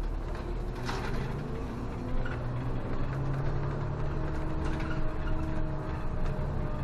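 City bus engine running as the bus drives slowly, heard from inside the cab. The engine note rises as it picks up speed, holds steady, then drops away near the end.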